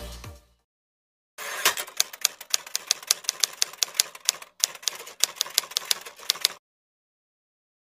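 Typewriter keystroke sound effect: runs of quick, sharp key clicks, several a second, in two stretches of about three and two seconds with a short break between them. The tail of electronic dance music fades out just at the start.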